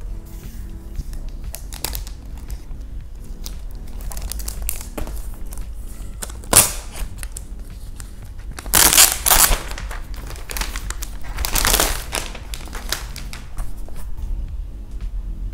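A laptop's clear plastic sleeve crinkling and rustling as it is handled and the laptop is slid out, with several louder bursts of crinkling, the loudest about nine seconds in. Soft background music plays underneath.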